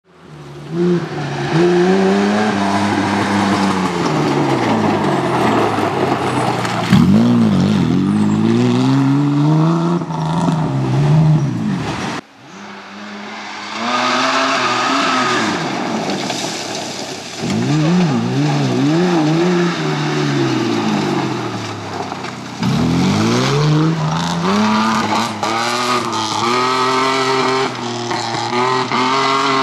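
Mitsubishi Pajero rally car's engine revving hard, its pitch climbing and dropping again and again through gear changes, with tyre and gravel noise underneath. The sound breaks off suddenly about twelve seconds in and again about two-thirds of the way through, then carries on.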